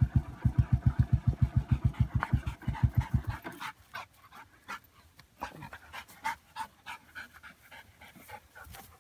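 An ATV engine idling with an even low thumping, about seven beats a second, that cuts off suddenly about three seconds in. After that come faint, irregular rustles and clicks of hay being pulled at.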